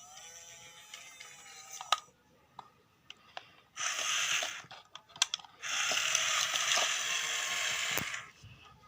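Battery-powered toy wheel excavator's small electric gear motors whirring in bursts, a short one about four seconds in and a longer one of about three seconds near the end, with light plastic clicks and knocks between.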